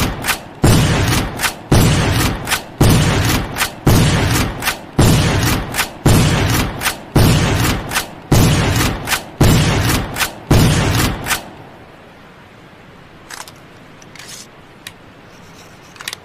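Henry 1860 lever-action rifle firing rapidly, about one shot a second, with the clicks of the lever being worked between shots. The firing stops about eleven seconds in, leaving a few faint clicks.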